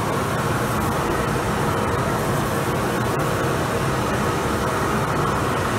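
Narrow-gauge steam locomotive venting steam: a loud, steady hiss.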